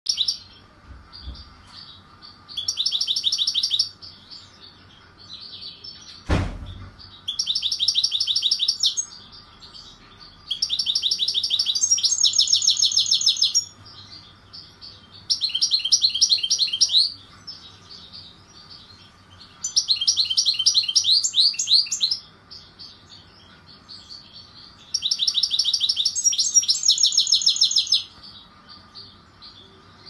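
European goldfinch (Carduelis carduelis) singing: six phrases of fast, high trilling, each two to three seconds long, with soft twittering between them. The keeper rates it a flawless, rare song. A single sharp knock about six seconds in.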